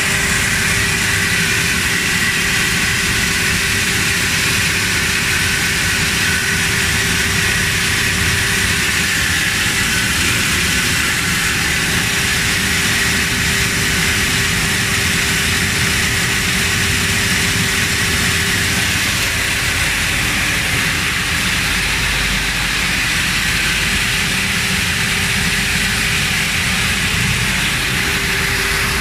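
6FT-PB8A bean peeling and splitting machine running steadily at a constant level, a loud even mechanical noise with a steady hum, while it splits and hulls peas.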